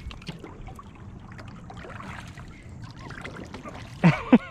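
Steady low wind-and-water noise on the open water around a kayak, with faint distant voices, then three short, loud vocal exclamations with falling pitch near the end.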